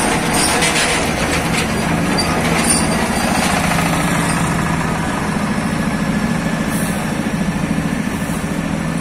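Scania R580 heavy-haul truck and its long multi-axle trailer moving slowly past: a steady low diesel engine drone over the rumble of many tyres rolling on the road.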